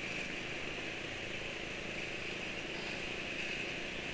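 Steady running noise of a motor scooter being ridden, heard from the rider's seat: engine and road noise with an even hiss.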